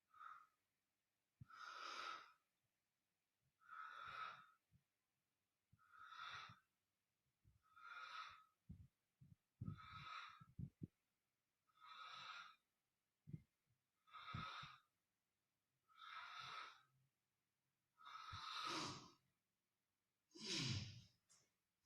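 Faint, breathy hissing that repeats evenly about every two seconds, like slow heavy breathing, about ten times. A few soft low knocks fall between the breaths.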